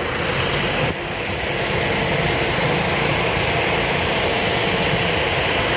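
A steady mechanical drone with a constant hiss and faint held tones, unchanging throughout.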